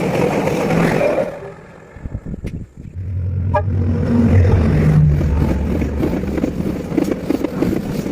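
Train passing, a loud rumble with wheels clattering on the rails. The noise drops away for a moment about a second in, then a deep rumble builds again, with quick clattering strokes near the end.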